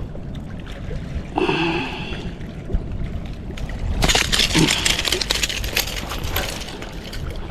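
Fast clattering and rattling for about two and a half seconds, starting about four seconds in, as a hooked striped bass is worked free of a jerkbait's treble hooks with pliers. A low wind rumble runs underneath.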